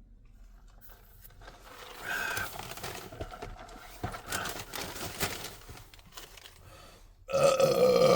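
Soft, scattered eating and handling noises, then about seven seconds in a long, loud burp that is still going at the end.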